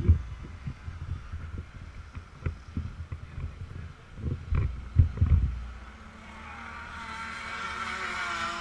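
Wind buffeting and knocks on the camera's microphone, then from about six seconds in the hum of a two-stroke kart engine fades in and grows steadily louder.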